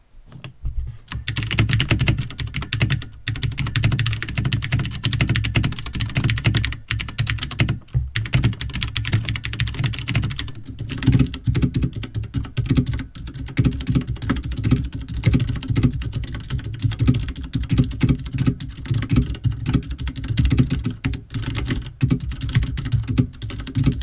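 Fast typing on a mechanical keyboard with clicky Cherry MX Blue switches: a dense, continuous run of key clicks. It is first heard without O-rings, and later with rubber O-ring dampeners on the keycap stems, which keep the keys from bottoming out and so make them quieter.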